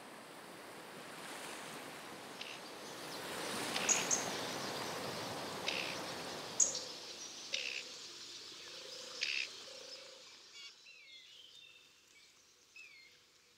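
Outdoor ambience with birds: a soft rushing wash swells to a peak about four seconds in and then fades, with short sharp bird calls every second or two over it. Toward the end only faint twittering calls remain over near quiet.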